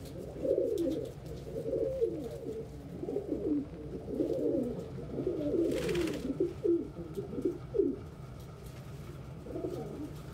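Domestic pigeon cooing over and over, a long string of low coos, with a brief rustle about six seconds in.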